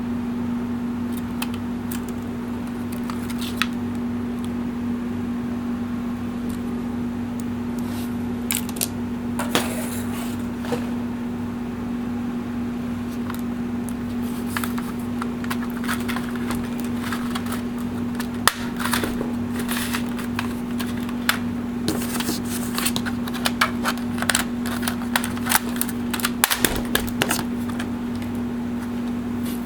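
Scattered clicks and taps of small tools and plastic and metal parts being handled as a laptop is taken apart, more frequent in the second half, over a steady low hum.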